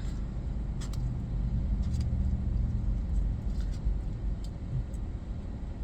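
Steady low rumble of an idling vehicle engine, with a few faint light clicks.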